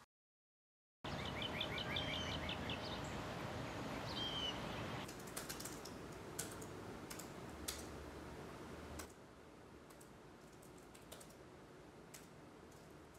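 Silence for about a second, then birds chirping over steady background noise. From about five seconds in, typing on a laptop keyboard, a run of sharp key clicks that thins to occasional clicks over a quieter room tone after about nine seconds.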